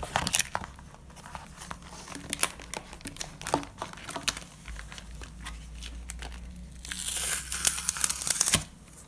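A folded card holder and clear plastic banknote sleeves rustling and crinkling as they are handled, with scattered small clicks. A louder, denser stretch of crinkling comes about seven seconds in and stops abruptly.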